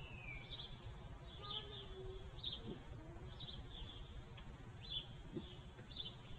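Faint outdoor birdsong: a small bird giving short, high chirps about once a second, over a low background rumble.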